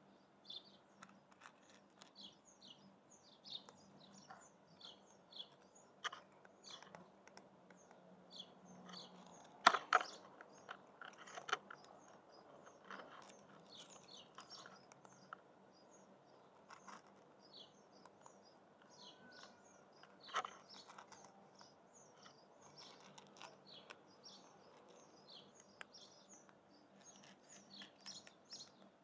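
A cat crunching dry kibble, with small birds chirping over and over in the background. A couple of sharper clicks stand out, one about ten seconds in and another near twenty seconds.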